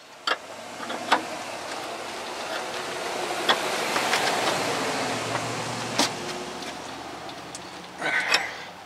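A car passing on the street: its engine and tyre noise swells to a peak about four seconds in, then fades away. Several sharp metal clinks come from hand tools at the front suspension.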